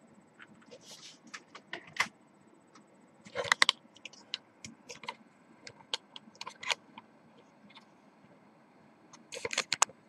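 Irregular light clicks and small rattles of objects being handled, with a denser cluster about three and a half seconds in and another near the end.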